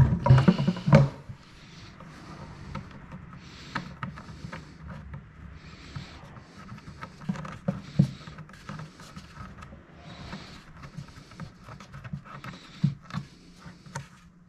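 Irregular knocks, clicks and rustling of things being handled, with a loud cluster of knocks in the first second.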